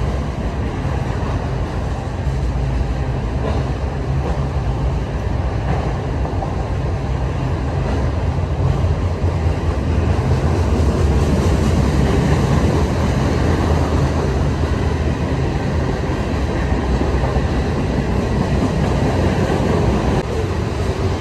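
A train passing, a loud steady low rumble that carries on unbroken and swells a little in the middle.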